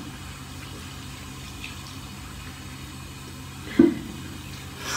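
Water spraying steadily from a handheld shower head onto a small dog being bathed, over a steady low hum, with a brief loud knock about four seconds in.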